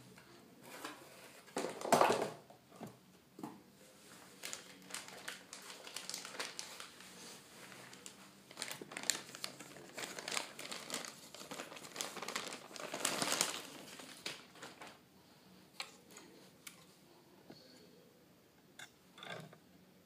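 Paper packing rustling in a cardboard box, then the motherboard's metallised plastic anti-static bag crinkling as the board is handled and pulled out, loudest a little past the middle, followed by quieter light clicks and knocks.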